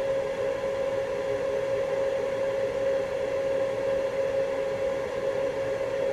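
Small electric fan running steadily, a constant whir with a steady mid-pitched whine.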